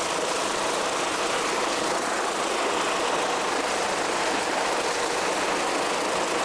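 Helicopter hovering close overhead, its rotor and engine noise steady and unbroken.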